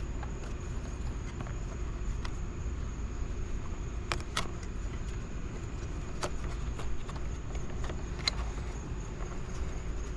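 A few sharp plastic clicks and taps from handling a car taillight assembly, over a steady low background rumble.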